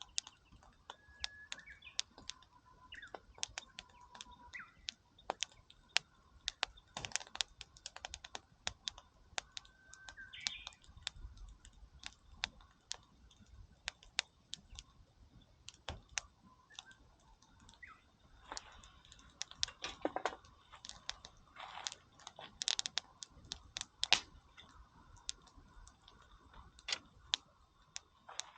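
Wood campfire crackling, with many sharp irregular snaps and pops.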